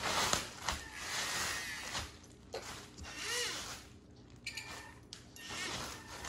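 Small electric drive motor and gears of a 1/14-scale Carson Linde RC forklift whirring in short bursts as it drives and manoeuvres, with brief whines that rise and fall in pitch.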